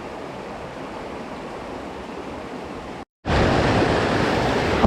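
Steady rush of river water. It cuts out briefly about three seconds in and comes back louder.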